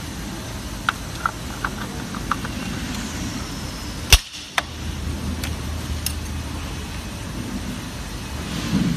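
Plastic parts of a car rearview mirror housing being clicked and fitted together by hand: a few light clicks, then one sharp snap about four seconds in, over a steady factory hum.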